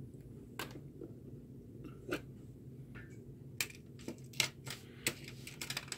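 Light, irregular clicks and taps of small plastic and metal parts as a pen-style electric precision screwdriver and its bits are handled and fitted together.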